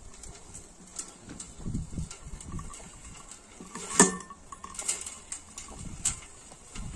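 Mesh-drum compost spreader being rolled over a lawn, its metal drum and frame rattling and clicking irregularly as it turns, with one sharp knock about four seconds in.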